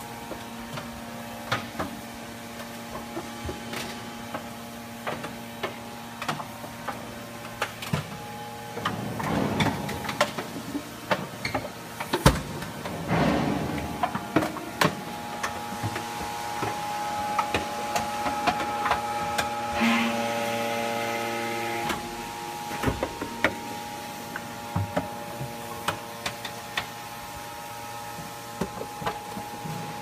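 Scrap metal baler's hydraulic power pack running with a steady hum of several tones, with scattered sharp clicks and knocks. The hum grows louder for a few seconds past the middle.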